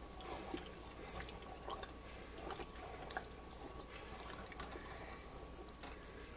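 A spoon stirring thick, wet Brunswick stew in a large metal stock pot: faint, irregular wet squelches and small scrapes and clicks against the pot.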